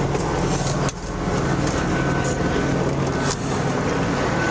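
A steady low mechanical hum under a dense rumbling noise, with a faint thin high whine joining about two seconds in and a couple of brief rustles or knocks.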